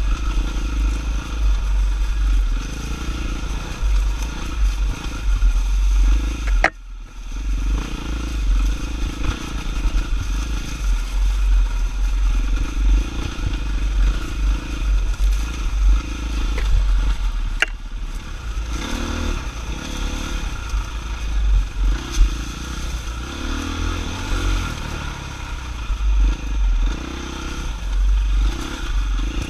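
Off-road dirt bike engine running and rising and falling in pitch as it is ridden along a rough woodland trail, with clatter and scraping from the bike over the ground. The sound drops away briefly about seven seconds in.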